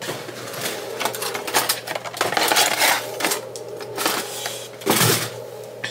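Clicks, knocks and rustling from hands handling kitchen items, among them a cardboard box of hot chocolate packets, louder for a moment about five seconds in. A steady hum runs underneath.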